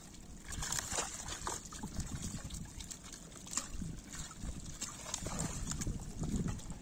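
Shallow pond water sloshing and splashing irregularly as live fish are scooped and handled in a drawn-in fishing net, with small splashes and patters from fish and hands.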